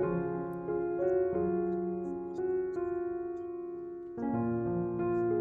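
Background piano music playing a slow, gentle melody, with a softer stretch about four seconds in.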